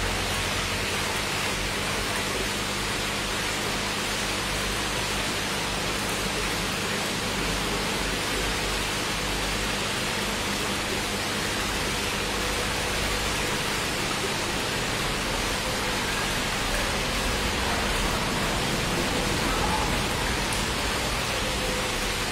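Steady rushing, rain-like hiss of aquarium water being circulated, with a faint low hum underneath.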